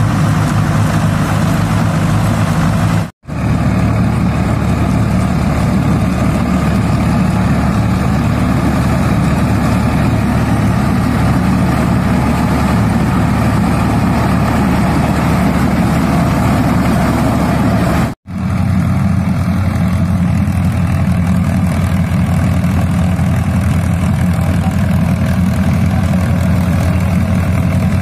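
Diesel tractor engines running steadily under load while driving tractor-drawn straw reapers through wheat stubble, in three stretches split by two abrupt cuts, about three seconds and about eighteen seconds in.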